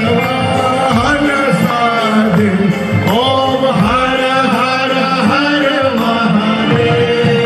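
Music with a male voice singing over steady held notes.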